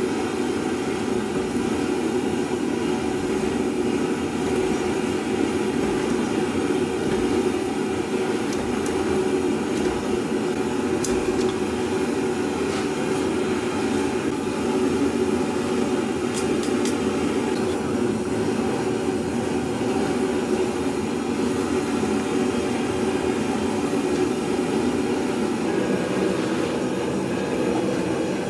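Blacksmith's forge running with a steady, even rushing noise, with a few faint clicks partway through.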